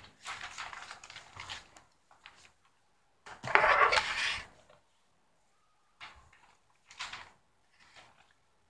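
Sheets of paper being shuffled and gathered into a stack on a table: a run of rustling and handling knocks, loudest about three and a half seconds in, then three short bursts.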